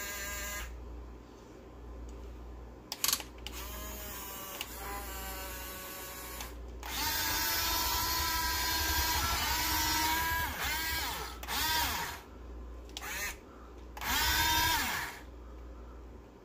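Electric motors and gearboxes of a Huina 1/14-scale RC excavator whining in a series of short stop-start runs as the tracks and boom are driven, the pitch rising and falling with each move. The longest and loudest run comes about halfway through.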